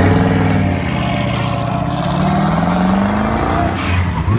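A car engine accelerating hard, its note climbing steadily for about three seconds, then dropping at a gear change near the end.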